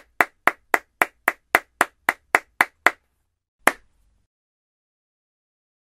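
One person clapping their hands in a steady rhythm, about four sharp claps a second. The claps stop about three seconds in, and a single last clap follows a moment later.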